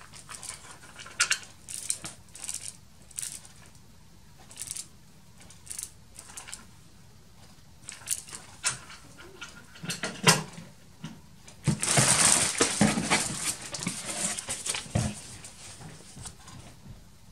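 Plastic packaging bags crinkling and rustling in short bursts as parts are handled in a cardboard box, with a sharp knock about ten seconds in and a longer, louder stretch of crinkling about twelve seconds in.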